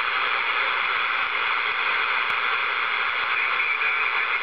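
Steady static hiss from a Midland 79-290 CB radio's speaker, tuned to channel 38 lower sideband, between transmissions. A faint click comes a little past two seconds in.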